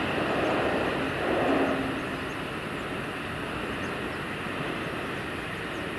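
KiHa 183-1000 series 'Aso Boy' diesel train heard from a distance, a steady rumble of engines and wheels on the rails that eases slightly after about two seconds, with a brief low hum about one and a half seconds in.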